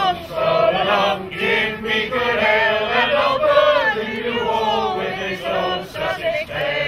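A group of men and women singing a song together in a chant-like unison, with a fiddle accompanying them.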